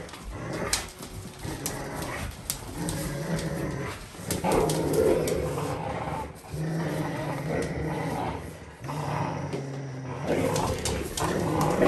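Rottweilers, an adult and puppies, making play growls while tugging a rope toy between them. It is a run of long, low growls, each a second or two long with short breaks, with scattered clicks and knocks.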